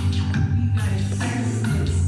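Music with a steady beat, bass line and percussion.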